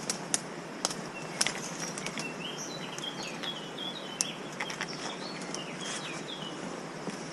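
A small songbird singing a run of short chirping notes over a steady rushing hiss, with a few sharp clicks scattered through.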